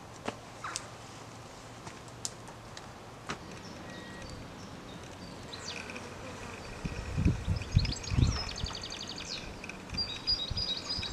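Small birds singing in the blossom, with high chirps and fast trills starting about halfway through. Bees are buzzing around the flowering apple tree, with a few loud low buzzes as they fly close past. Before the birdsong there are only a few faint clicks over a quiet outdoor hush.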